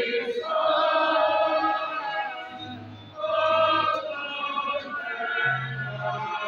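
Voices singing a slow chant during Mass, long held notes with short breaks between phrases.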